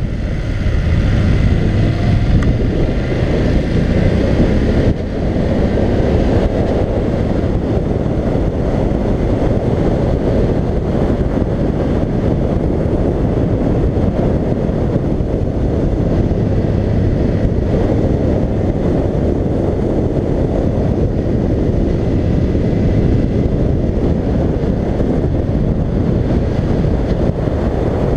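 Wind rushing over a helmet-mounted camera's microphone, with a BMW F750GS motorcycle's parallel-twin engine running underneath at road speed. The level dips briefly about five seconds in.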